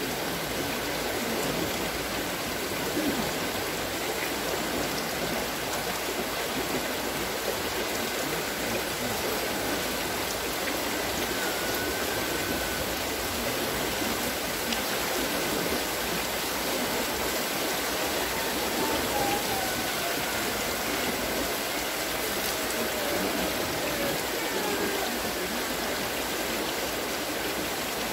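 Steady rush of water pouring and splashing from the buckets of a wooden water-lifting wheel.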